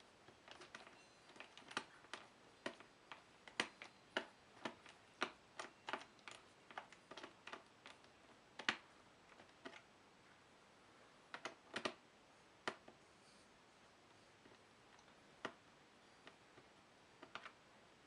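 Faint, irregular clicks and taps of a screwdriver and small screws on a laptop's plastic bottom case as it is taken apart. They come a few a second for about the first half, then only now and then.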